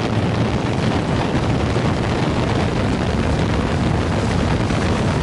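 A quadcopter's four brushless motors and propellers running steadily, heard from the onboard action camera, with wind rushing over the camera's microphone and mostly covering the motor hum.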